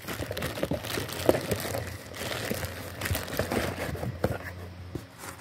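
Plastic packaging bag crinkling and rustling as it is handled, with scattered small clicks.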